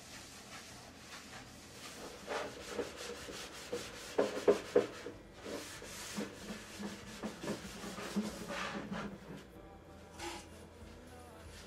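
Repeated scrubbing strokes in an irregular run, loudest about four to five seconds in.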